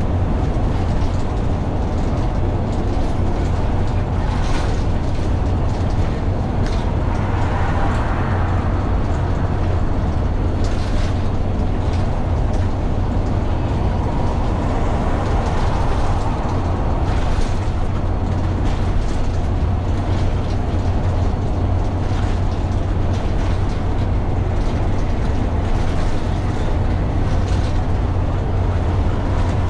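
Dennis Dart single-deck bus running along the road: a steady low engine drone with road noise, a few brief rattles and gentle swells in the engine sound.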